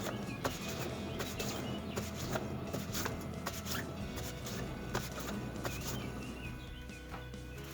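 A car's wheel, jacked off the ground, spinning by hand to test its wheel bearing: a low rumble with irregular clicks, dying away near the end as the wheel slows. Faint music plays underneath.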